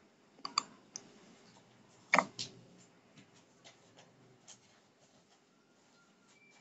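Scattered computer clicks and taps, mouse or keyboard, about ten in all at irregular gaps, the loudest about two seconds in, heard over the online meeting's audio while a screen share is being started. A faint short tone sounds near the end.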